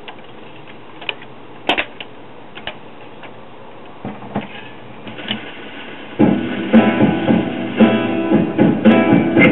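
Collaro Micromatic record changer in a 1965 Magnavox Astro-Sonic console cycling: several sharp mechanism clicks as a 45 rpm single drops onto the platter and the tonearm sets down. About six seconds in, the guitar-led record starts playing through the console's speakers.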